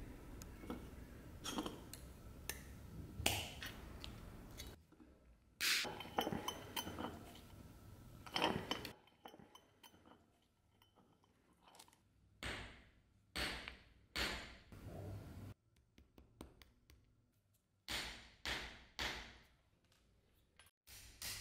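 Round-nose pliers working small brass wire chain links: scattered sharp little metallic clicks and clinks, some in quick runs of three or four.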